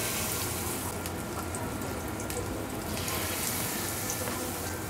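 Hot oil sizzling in a frying pan as spoonfuls of vegetable fritter batter (bakwan) are dropped in to fry, the hiss swelling near the start and again about three seconds in, with small crackles.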